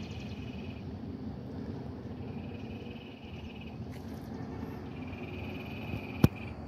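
A calling animal's high, pulsing trill, repeated in phrases of about a second each, over a steady low rumble. A single sharp click near the end is the loudest sound.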